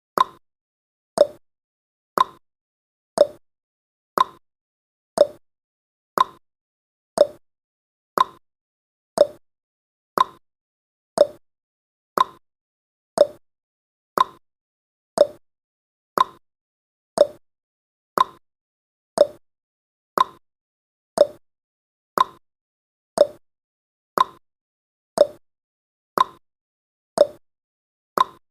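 Clock tick-tock sound effect marking each second of a countdown timer: one sharp click a second, alternating between a higher tick and a lower tock.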